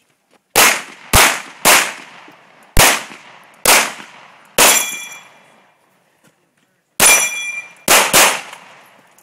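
Nine pistol shots fired in an uneven string, each with a short echo, including two quick pairs. Twice, about halfway through and again about three-quarters through, a hit steel target rings out after the shot.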